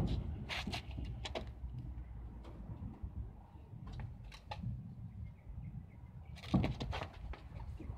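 Scattered sharp clicks and light knocks over a low rumble as a pickup's wheel is handled and turned on its hub, with the loudest cluster of knocks near the end.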